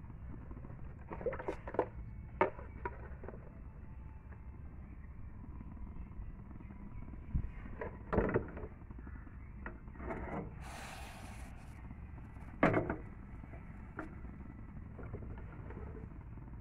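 Scattered knocks and clatter of cookware being handled at a gas stove, over a steady low rumble, with about a second of hiss a little past the middle.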